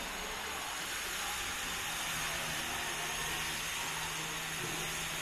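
A steady, even hiss with a faint low hum underneath from about two seconds in.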